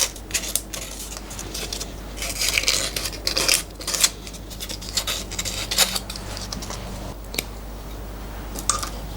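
Metal edges being cleaned up by hand after milling: irregular scraping strokes of a hand tool on metal, with light metallic clicks and clinks as the parts are handled.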